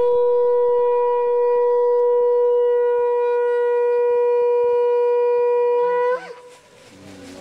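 Conch shell (shankha) blown in one long, steady note. The note ends about six seconds in with a brief upward bend in pitch.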